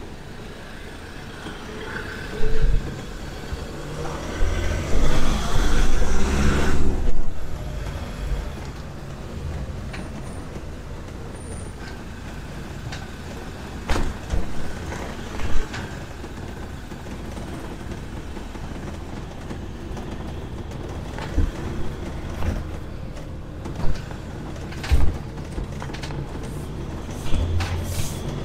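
Motorhome heard from inside its cab while driving slowly: a steady low engine and road rumble. Several sharp knocks and rattles come as it rolls over the brick-paved street, the loudest stretch coming a few seconds in.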